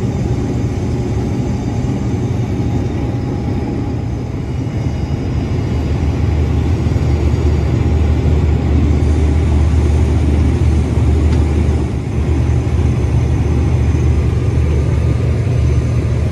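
Case IH 2388 combine harvesting corn, heard from inside the cab: a loud, steady low drone of the engine and threshing machinery, dipping briefly about twelve seconds in.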